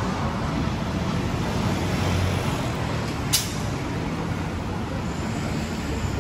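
Street traffic: a steady mix of road noise and engine rumble from passing vehicles, with one sharp click a little past the middle.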